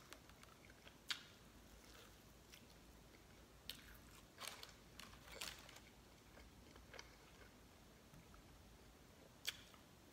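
Faint eating sounds of a person eating bone-in chicken wings: chewing, wet mouth and lip smacks, and a few sharp clicks, the loudest about a second in and near the end.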